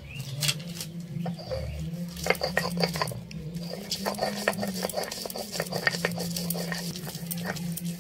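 Stone roller (nora) rocked and rubbed over a flat grinding stone (shil), crushing fried cabbage into a paste: scraping with many irregular clicks and knocks of stone on stone, busier from about two seconds in.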